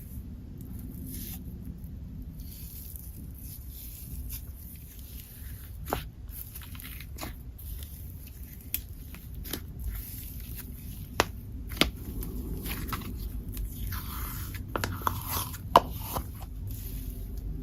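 Slime being squeezed and worked by hand, with soft squishing and crackling and a scattering of sharp clicks and pops.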